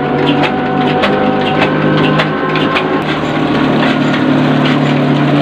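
Locally made (desi) diesel engine running steadily, driving a grinding mill through a long flat belt; the engine's hum is overlaid by the mill's rattling and a stream of sharp clicks that thin out about three seconds in.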